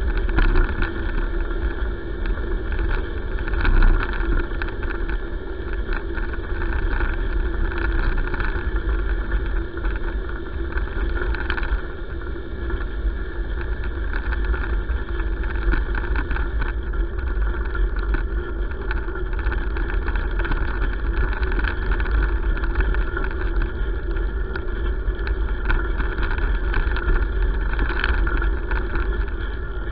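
Steady rumble of tyres rolling on a gravel road, with wind buffeting the handlebar-mounted camera's microphone, as a dog pulls the rider along.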